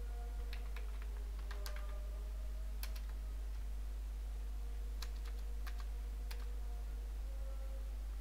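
Computer keyboard keys being typed, scattered clicks coming a few at a time with pauses between them, over a steady low hum.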